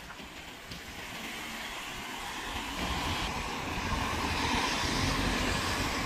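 Outdoor town-street noise: a steady rumble with a hiss over it, growing louder about three seconds in.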